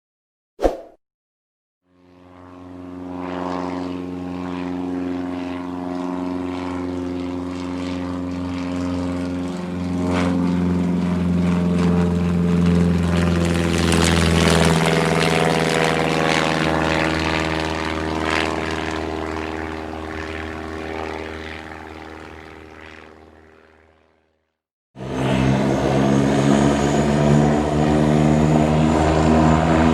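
Biplane's propeller engine droning as it flies past: it fades in, grows loudest about halfway through, then fades away. A brief sharp click comes near the start, and after a short silence another loud propeller-engine recording cuts in abruptly near the end.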